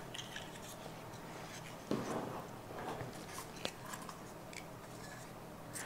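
Faint handling noise of a small plastic toy drone being turned in the hands while a part is fitted to its top: light plastic clicks and crackles, with a soft knock about two seconds in and a sharp click a little later.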